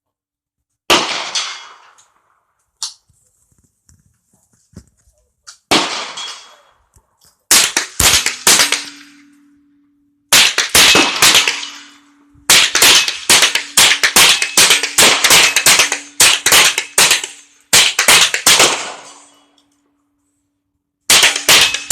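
Gunfire at an outdoor range: single shots about a second in and near six seconds, then rapid strings of shots fired several a second, the longest running for about seven seconds, and another string starting near the end.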